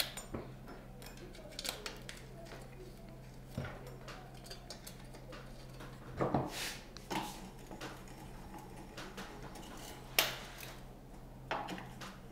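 Scattered light metallic clicks and knocks as the slotted metal end cover over a small portable generator's alternator brush is handled and fitted back into place, over a faint steady hum.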